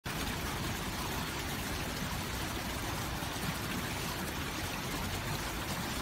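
Water from a garden water feature running fast over a paved stone surface and spilling over a stone ledge into the pool below, a steady, even rush of splashing water.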